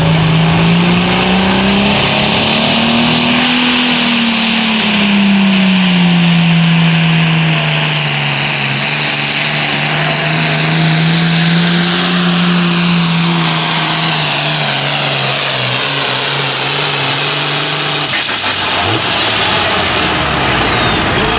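Turbocharged diesel engine of an International hot farm pulling tractor at full throttle under the sled's load. The engine note climbs over the first few seconds, then sags and holds with a high turbo whine above it. Near the end the throttle comes off and a whistle slides down as the turbo spools down.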